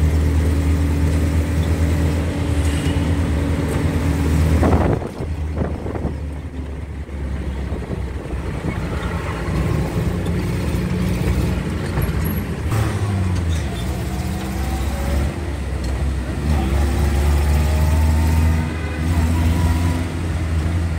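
City bus engine heard from inside the cabin, running with a low drone while the bus drives through street traffic. The engine sound swells briefly about five seconds in, then drops away and builds up again later.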